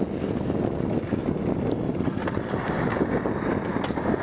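Wind buffeting the camera microphone: a steady low rushing noise.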